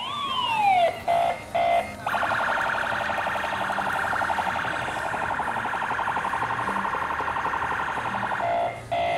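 Electronic car alarm sounding: a falling whoop, two short beeps, a long fast warble, then two more beeps.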